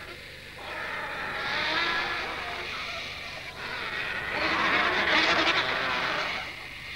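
A crowd of vultures squabbling and calling as they feed together on a carcass, in two long bouts with a short lull about halfway.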